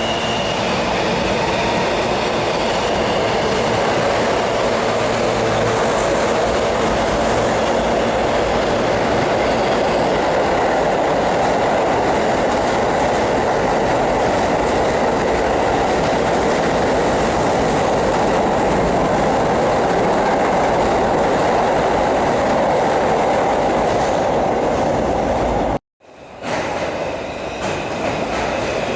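New York City subway train on the BMT Broadway Line running on the tracks: a loud, steady rumble with wheel clatter. The sound cuts out abruptly for a moment near the end, then the train noise resumes.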